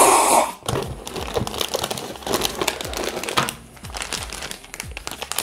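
Plastic snack wrapper of a KitKat Milk Tea pack crinkling and crackling as it is handled and pulled open, busiest in the first three seconds and lighter after. It opens with a brief loud rush of noise.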